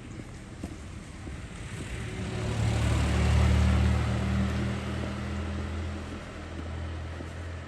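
A motor vehicle passing close by: a low engine hum and a rush of noise swell to a peak about three seconds in, then fade slowly.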